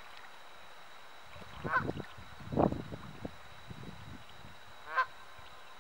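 Geese honking in a few separate calls, about two seconds in and again near the end, with a louder, lower call between them; the geese are agitated.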